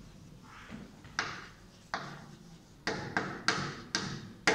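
Chalk on a blackboard: a string of sharp taps and short scratchy strokes as a word is written, about seven in all, irregularly spaced and coming closer together in the second half.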